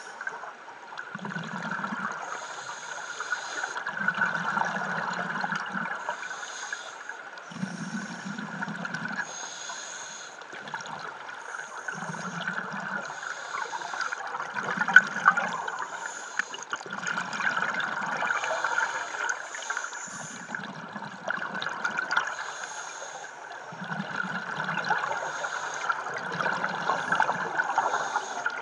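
Scuba diver breathing through a regulator underwater: a hissing inhale, then a bubbling exhale, repeating about every three seconds over a constant hiss.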